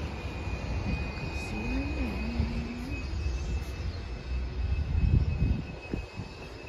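Wind buffeting the microphone in gusts, a low rumble that is strongest about five seconds in, with a faint steady high tone underneath.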